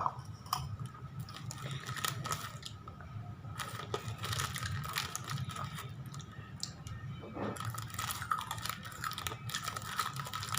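Spicy crispy chips being bitten and chewed close to the microphone: irregular crisp crunches coming thick and fast.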